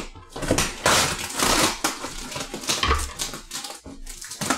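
Cardboard box and packaging rustling, crinkling and knocking as items are dug out of it by hand, with scattered sharp clicks.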